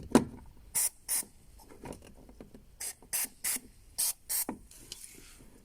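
Aerosol lubricant spray can giving about seven short hissing bursts, sprayed onto the lower part of a creaking car door to stop the squeak.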